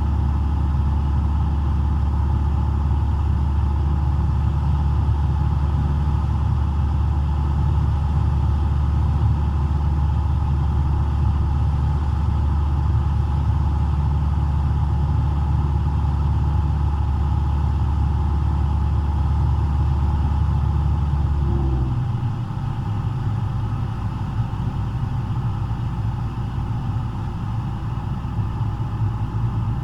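Cessna 172's four-cylinder Lycoming engine and propeller droning steadily in flight, heard inside the cockpit. About two-thirds of the way through, the low drone steps down and gets a little quieter as power is reduced, then runs on steadily at the lower setting.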